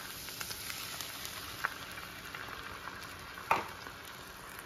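Vegetables and ground pork sizzling steadily in a frying pan while a wooden spatula stirs them, with light clicks and one louder knock of the spatula about three and a half seconds in.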